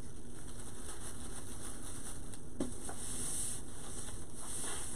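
Rustling and crinkling of an artificial floral pick and deco mesh being handled as the pick is worked into a wreath and secured with its ties, with a few light ticks.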